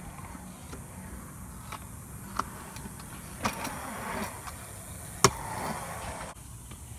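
Stunt scooter riding: the wheels roll on the park's surface with scattered light clicks, then one loud, sharp clack a little over five seconds in. The rolling stops suddenly about a second later.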